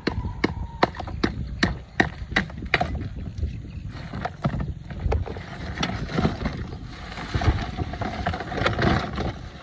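Hands working in a plastic cooler of ice and small fish: a run of even, sharp knocks, about two and a half a second, for the first three seconds, then ice rattling and shifting as the hands dig through it. Wind noise and a low rumble sit underneath.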